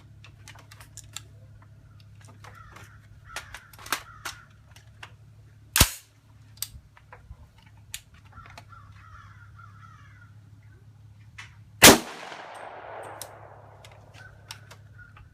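Two rifle shots from a 300 Blackout short-barreled rifle, about six seconds apart; the second is much louder and really loud, ringing out for a second or more afterwards.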